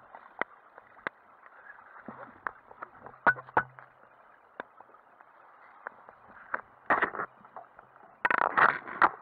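Muffled water splashing with many irregular knocks and clicks, growing louder in a dense burst about eight seconds in.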